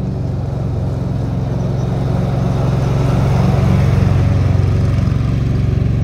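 An engine running steadily, growing a little louder over the first few seconds.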